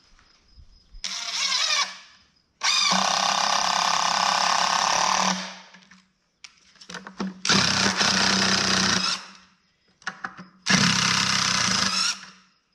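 Cordless impact driver hammering screws in and out of 2x4 lumber in four bursts, the second the longest at about three seconds, with a few small clicks of handling between them.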